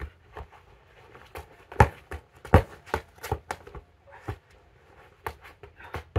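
A ball being juggled with the feet: an irregular string of dull thuds, roughly two a second, as it strikes trainers and legs, mixed with shoe scuffs and steps on paving slabs; the hardest touches come about two and two and a half seconds in.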